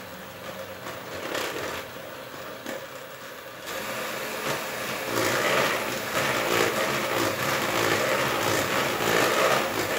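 Bosch electric hand mixer running, its beaters whisking melted chocolate into egg and sugar batter in a plastic bowl. It runs steadily and gets louder about four seconds in, and again around five seconds in.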